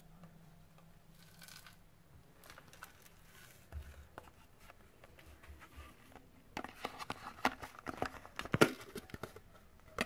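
Quiet handling noise: faint rustling with scattered sharp crackles and clicks as the phone and plastic parts shift in the hands. It is loudest in a cluster of crackles between about six and a half and nine and a half seconds in. The vacuum motor is not running.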